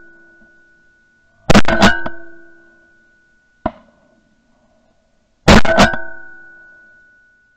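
Two shotgun shots about four seconds apart, each a sharp blast followed by a ringing tone that fades over about two seconds, with one light click between them.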